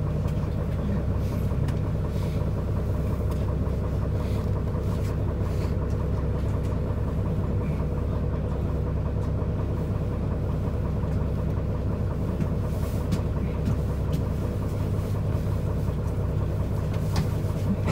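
Isuzu Erga city bus engine idling steadily while the bus stands at a stop, heard inside the passenger cabin, with a few light clicks.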